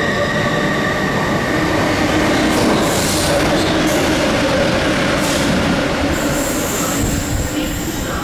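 A diesel-hauled freight train runs through the station close by at speed, with loud engine and rolling-wheel noise and several clanks as it passes. A thin high steady tone comes in near the end.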